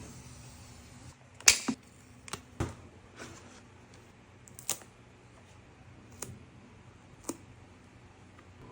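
A handful of separate sharp knocks and clicks of items being set down and handled, about six spread out, the loudest about a second and a half in.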